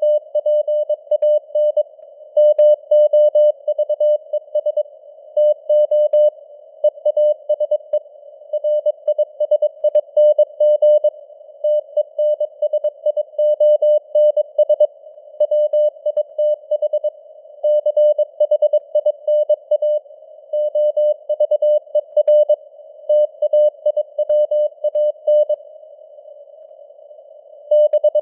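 Morse code sent as a steady sine-wave tone of about 600 Hz at 22 words per minute, keyed in quick dots and dashes over a narrow band of hiss like a receiver's noise. The keying pauses for about two seconds near the end, then resumes.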